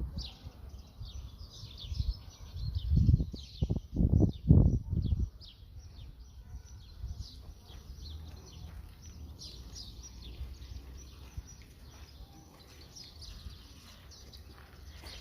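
Small birds chirping repeatedly in short, quick notes throughout. Several loud low rumbles come in the first five seconds, the strongest around four to five seconds in.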